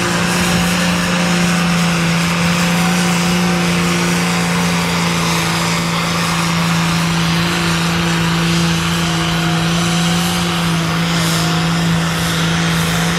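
Vintage Fordson tractor's four-cylinder diesel engine running flat out at a steady pitch, under full load as it drags a weight-transfer sled down the pulling track.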